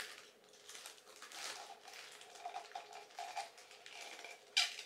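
Faint handling noise of a glass storage jar and its plastic wrapping: soft crinkling and rubbing, with a run of short squeaky rubs about two to three and a half seconds in and a louder rustle just before the end.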